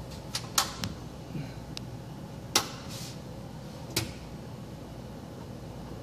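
Sharp clicks and knocks from a kitchen range hood's controls being worked to start its fan, several in the first second, the loudest about two and a half seconds in and a last one at about four seconds, over a steady low background.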